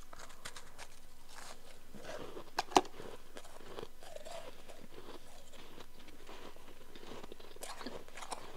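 A person crunching and chewing a chunk of powdery, frosty ice, with many small crackles. The ice breaks with one sharp, much louder crack a little under three seconds in.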